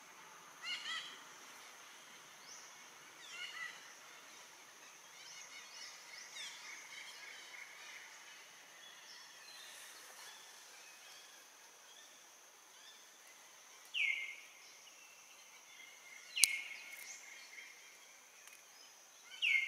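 Outdoor forest ambience: short bird calls over a steady high insect hum. A few faint chirps come early, then three louder calls near the end, each a quick downward sweep, with a sharp click alongside the middle one.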